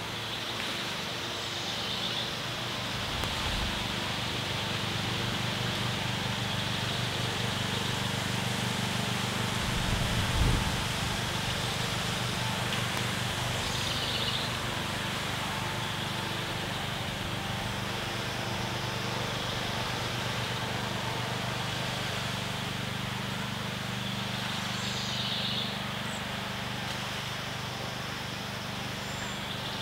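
Lakeside outdoor ambience: a steady low drone of a distant motor engine over a constant hiss, with a bird chirping briefly three times. A short low thump about ten seconds in.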